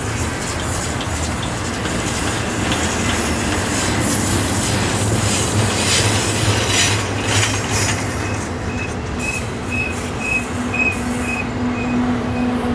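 A freight train rolling by, its steel wheels grinding and squealing against the rails. In the second half a faint high ping repeats about twice a second.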